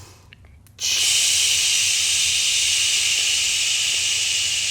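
A long, steady hissing breath drawn through the mouth, held evenly as part of a slow counted breath during a yoga stretch; it starts suddenly about a second in.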